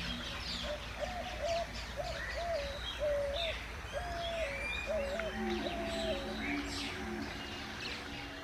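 Small birds chirping and twittering over a repeated low note about twice a second and soft, steady low tones.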